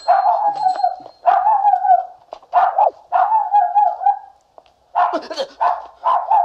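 A dog barking over and over, about eight loud barks in a row with short gaps between them.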